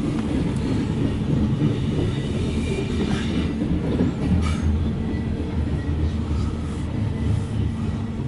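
Loaded CSX coal hopper cars rolling past, a steady low rumble of steel wheels on rail. A few brief sharper, higher sounds come from the wheels about three to four and a half seconds in.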